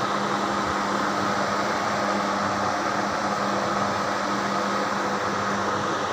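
Welding equipment running: a steady, even hiss with a constant low hum underneath.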